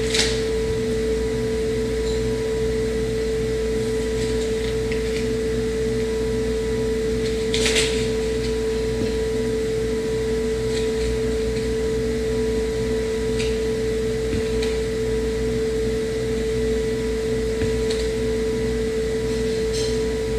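Steady mechanical hum, like an appliance or fan running, holding one strong steady tone over a low rumble. A few faint soft clicks and a brief rustle about eight seconds in.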